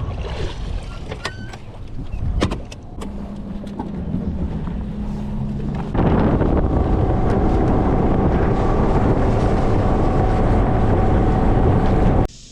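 Bass boat's outboard motor idling with a steady low drone, then running loud at speed from about six seconds in; a few knocks and clicks in the first seconds, and the sound cuts off abruptly near the end.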